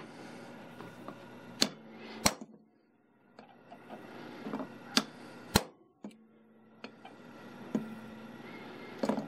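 Hammer striking a steel punch held on a wire rope ferrule sleeve, crimping dimples into the sleeve to lock it on the cable. About six sharp metallic strikes, unevenly spaced, some in quick pairs.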